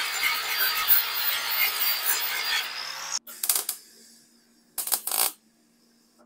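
Wire-feed (MIG) welder arcing on thin sheet steel, filling holes in a VW fan shroud: a dense crackle over a low hum that cuts off sharply about three seconds in. Two short tack-weld bursts follow, about a second apart.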